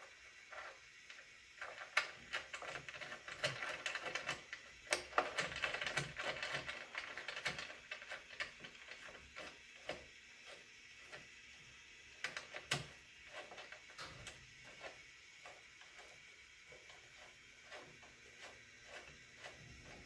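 Hand-fitting and tightening of mounting hardware under an MDF drill press table: small clicks, taps and light knocks, with a busier stretch of scraping and rattling in the first half.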